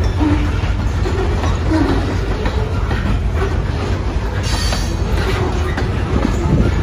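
Covered hopper cars of a freight train rolling past: a steady low rumble of steel wheels on rail with irregular clicks at the joints. About two-thirds of the way in there is a brief high squeal.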